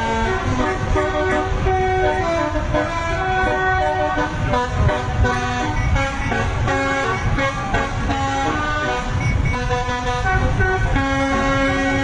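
Bus telolet horn, a set of air-horn trumpets, playing a quick melody of stepped notes, several tones sounding together, ending on a longer held low note, over a low rumble.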